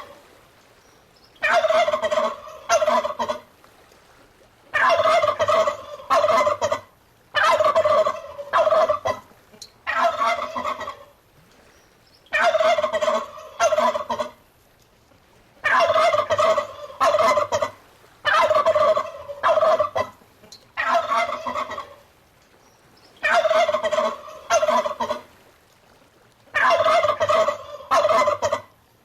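Turkey gobbling: about nine rapid, rattling gobbles in a row, each one to two seconds long, with short pauses between them.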